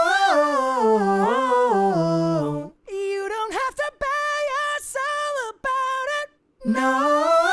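A soloed, dry clean male vocal track from a rock multitrack session, sung with no band behind it: held notes sliding up and down in pitch, in three phrases separated by short silences.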